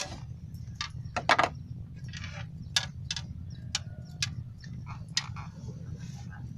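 Irregular sharp clicks and taps, about a dozen, the loudest a quick double tap about a second in, over a steady low hum.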